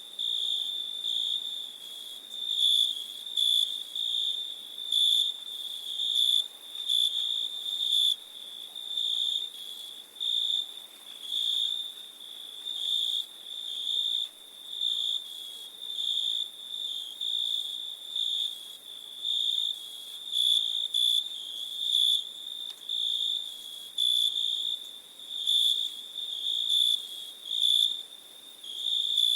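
A night chorus of crickets: a continuous high-pitched trill that swells and fades about every one to two seconds.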